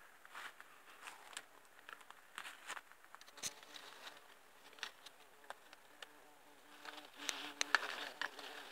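Dry leaves and twigs crackling and snapping as someone pushes through undergrowth, with a faint insect buzz coming and going underneath. The crackles cluster most thickly near the end.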